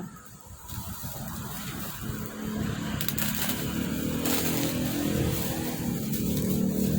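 A motor vehicle's engine running nearby, a low hum that grows steadily louder, with a few short clicks over it.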